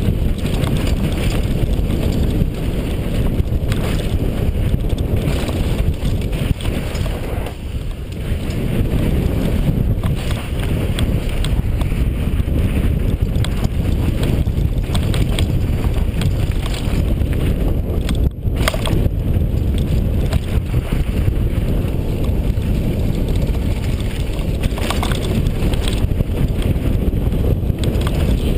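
Wind rushing over a helmet-mounted GoPro's microphone as a Rocky Mountain downhill mountain bike rides fast down a dirt and gravel trail. The tyres rumble and the bike rattles and clatters over bumps throughout, with a brief break about two-thirds of the way through.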